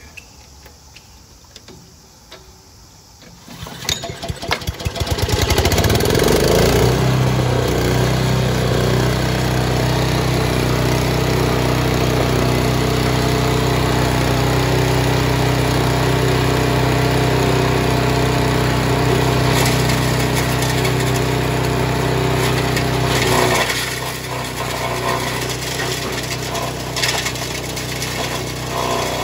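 Honda GX160 5-horsepower single-cylinder four-stroke engine on a Kioritz KS50 wood chipper-shredder being started: it catches about four seconds in, speeds up over a second or two, then runs steadily at working speed. About 23 seconds in, its sound drops a little and changes.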